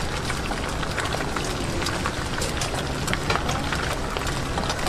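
Egg omelette frying in oil on a flat griddle: a steady sizzle with many small crackling pops.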